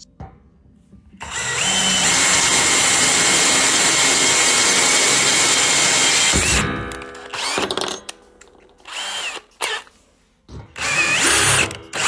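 Power drill boring through a thick metal mounting plate, the bit cutting steadily with a constant motor whine for about five seconds, then winding down. Three short bursts of drilling follow.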